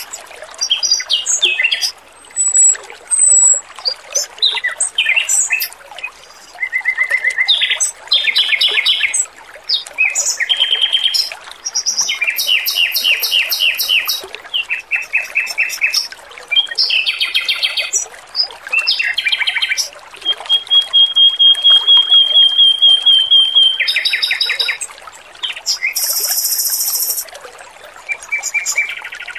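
Male Pekin robin (red-billed leiothrix) singing in rapid, varied phrases of quick repeated notes and trills, with one long steady whistle about two-thirds of the way through. Water trickles steadily underneath.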